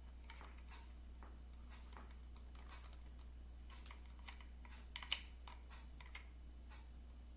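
Faint, irregular clicks and taps of hard plastic toy parts being handled and pushed together as a small plastic gun is worked into its socket on a toy horse, with one louder click about five seconds in.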